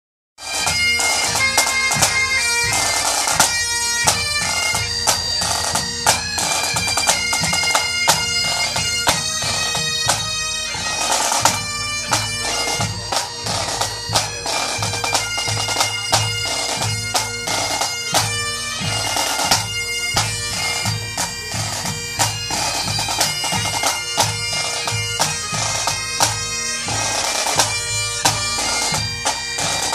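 Scottish pipe band playing: Highland bagpipes sound a melody over their steady drone, with rattling snare drums and a regular bass drum beat that comes through more strongly from about twelve seconds in.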